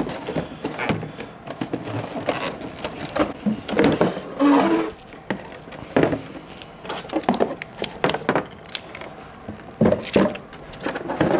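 Cardboard box and packing material rustling, scraping and knocking as a compact kitchen water heater is pulled out of its shipping box and set on a table, in a series of irregular knocks and scrapes.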